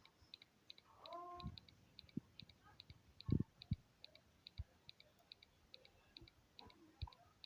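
Small piezo buzzer of an Arduino ultrasonic proximity alarm sounding in short, high double ticks at an even rate of about two and a half a second; the rate is set by how close an object is to the sensor. A few low thumps, the loudest a little past three seconds in.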